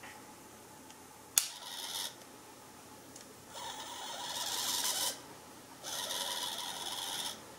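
Turnigy TGY-1800 180-degree servo whirring as it pans the DJI Air Unit camera from side to side. After a click about one and a half seconds in comes a brief whir, then two longer runs of about a second and a half each.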